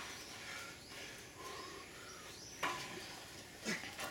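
Quiet outdoor background with faint bird chirps and a few short knocks, about three of them.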